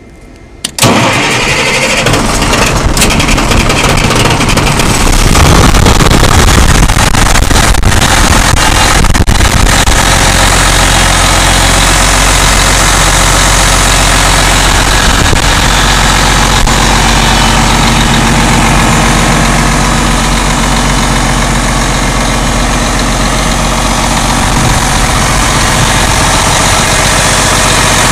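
Cummins M11-C300 inline-six diesel engine starting about a second in, then running steadily. It gets a little louder a few seconds later and holds an even note.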